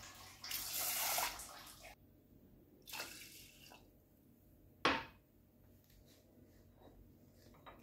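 Water poured from a drinking glass into a small saucepan of uncooked rice, in two pours: a longer one over the first two seconds and a shorter one about three seconds in. A single sharp knock follows near five seconds.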